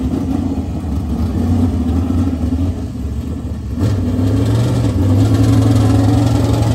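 A dirt-track modified race car's V8 engine idling, its note stepping up a little just before four seconds in and holding there.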